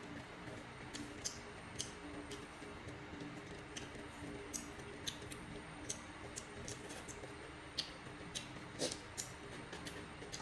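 Close-up eating sounds: irregular wet clicks and smacks of chewing, a few a second and unevenly spaced, over a steady low hum.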